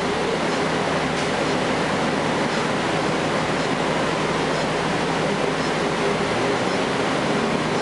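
Cummins ISL9 inline-six diesel engine of a 2012 Gillig Low Floor bus running steadily under way, heard from inside the passenger cabin together with road noise.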